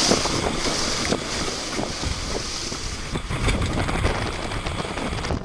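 Storm wind gusting, with many short ticks of rain striking window glass.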